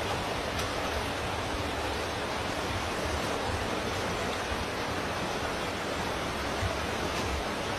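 Steady, even rush of water, as from heavy rain or flood water running, with no breaks or distinct events.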